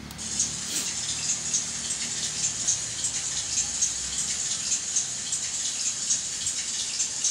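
A click from the amplifier's USB music player button, then a track starting to play through the amplifier for a sound check. The opening is hissy, with a light rhythm of high ticks like a shaker or hi-hat, about three or four a second.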